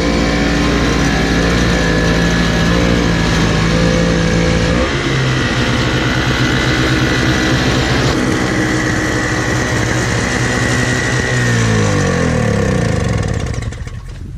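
An engine running steadily at speed, changing pitch about five seconds in, then dropping in pitch as it slows down over the last few seconds.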